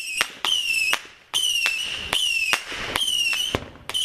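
Whistling firework going off again and again: a run of shrill whistles, each about half a second and dipping slightly in pitch, with sharp cracks between them, roughly two a second.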